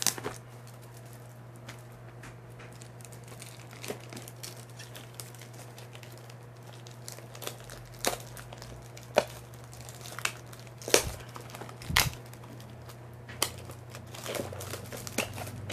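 Plastic wrapping crinkling and tearing in scattered crackles and a few sharper snaps as a sealed box of trading cards is unwrapped, over a steady low hum.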